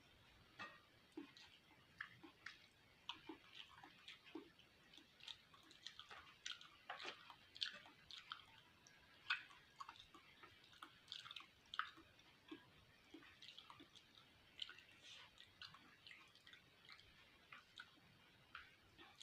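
Faint close-miked chewing of cooked beef fat: irregular wet mouth clicks and smacks, a few of them louder than the rest.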